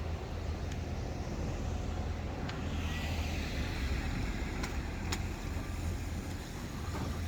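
Street ambience with a steady low rumble, and a vehicle passing that swells and fades through the middle.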